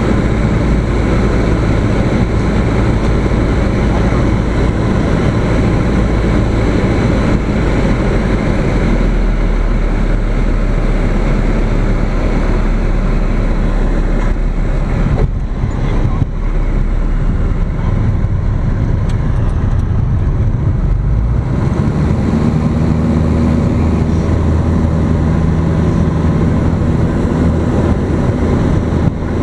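Single-engine light aircraft's piston engine and propeller heard from inside the cockpit during a touch-and-go: running at reduced power through the approach and landing, with a brief dip around the middle. About two-thirds of the way through the engine note changes and grows stronger as power comes up for the takeoff roll.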